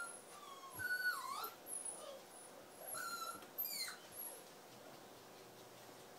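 Squeaky plush toy being chewed by a puppy: a string of short, high, wavering squeaks that stops about four seconds in.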